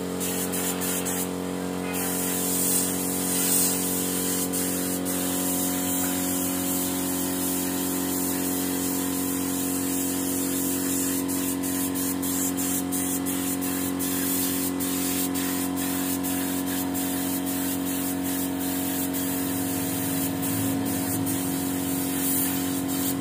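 Air spray gun hissing as finish is sprayed onto a turned wooden table, over a steady motor hum.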